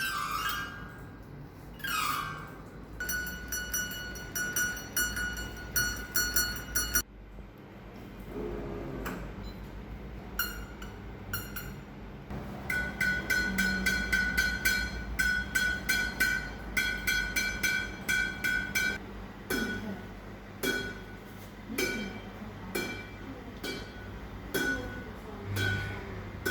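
Badminton racket strung with Kizuna Z58 string hitting shuttlecocks, each hit a sharp, high, metallic ping. The hits come in quick runs of about four a second, with sparser single hits near the end.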